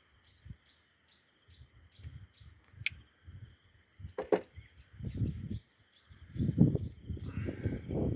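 Insects chirping steadily in rapid, evenly spaced pulses. Under them run irregular low rustling and knocking, which grow louder in the second half, and there is a sharp click about three seconds in.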